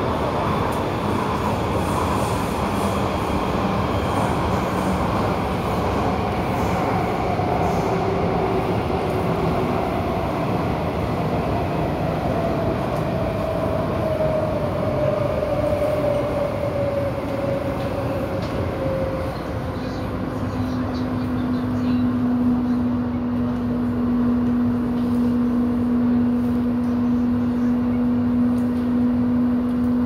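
MTR A-train electric multiple unit running, heard from inside the car: steady rumble of wheels on track, with a traction-motor whine that falls slowly in pitch as the train slows. About two-thirds through, a steady low hum takes over.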